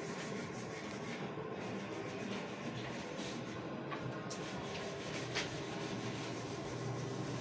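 Steady low background hum of a workshop, with a few faint clicks a few seconds in.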